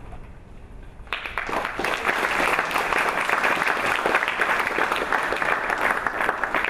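Audience applauding: many hands clapping together, starting suddenly about a second in.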